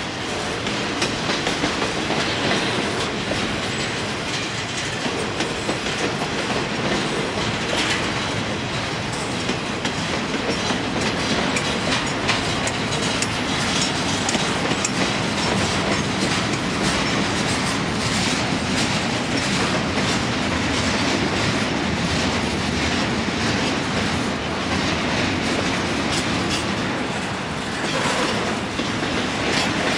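Double-stack intermodal well cars rolling past: a steady rumble of steel wheels on rail, with rhythmic clicking as the wheels cross rail joints.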